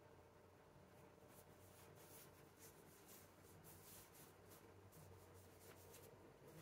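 Near silence: faint, soft rustling of paper and cotton as hands smooth a twisted t-shirt on butcher paper, over a low steady hum.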